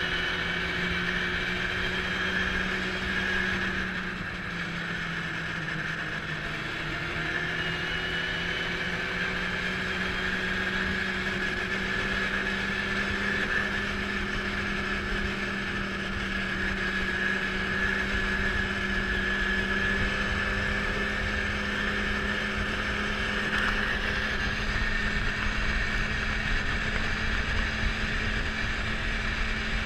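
Yamaha snowmobile engine running at cruising speed, a steady drone as the sled crosses open snow. The engine note dips a little about four seconds in, then climbs slowly in pitch.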